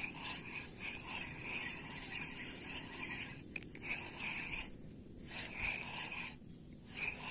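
Spinning reel being cranked to retrieve a lure: a soft, repeating scratchy whir, about three turns a second, stopping briefly a few times between spurts of winding.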